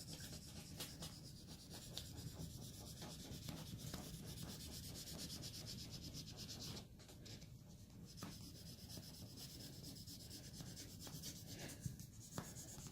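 Sandpaper being handled and rubbed: quiet, steady scratchy rubbing made of many small strokes, easing off a little about seven seconds in.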